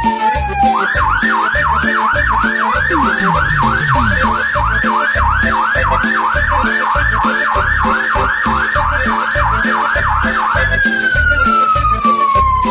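A siren sounding a long falling wail, then switching about a second in to a fast rise-and-fall yelp, about two to three cycles a second, and dropping back into a long falling wail near the end. Underneath runs music with a steady pounding beat.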